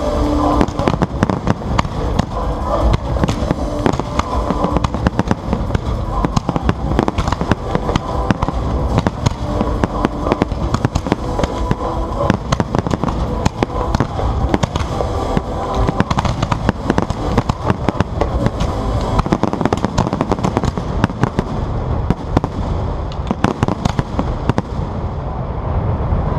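Fireworks display: a dense, unbroken barrage of sharp bangs and shell bursts, many every second, with no let-up.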